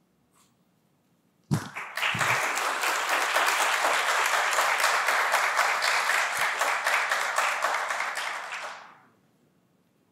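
Audience applauding, a steady patter of many hands that starts about a second and a half in, opening with a low thump or two, and dies away shortly before the end.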